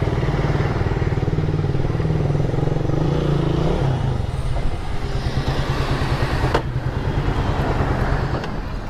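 Small motorcycle engine running steadily, then its pitch drops about four seconds in as the bike slows. A single sharp click comes near the end.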